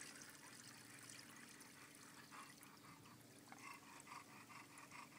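Near silence with faint trickling water. From a little before halfway, a faint, quick, even pulsing begins, about four times a second.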